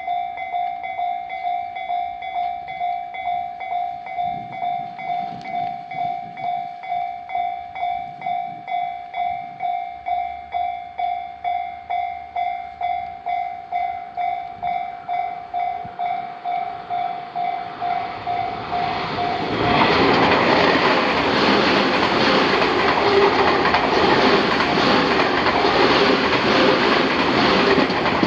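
Japanese railway level-crossing warning bell ringing steadily about twice a second, with the slightly odd tone the crossing is known for. About twenty seconds in, a Tobu Tojo Line electric train passes loudly over the crossing and nearly drowns the bell.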